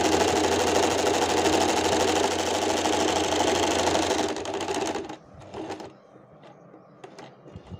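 Usha Stitch Magic electric sewing machine running at speed, stitching a dense decorative embroidery pattern, then slowing and stopping about five seconds in. A few light clicks follow.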